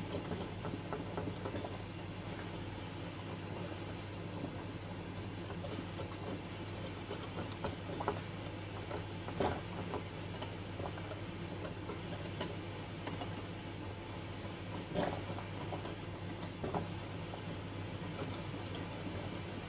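Wire whisk beating crepe batter in a glass bowl: soft wet stirring with a handful of sharp clinks as the whisk strikes the bowl, over a steady low hum.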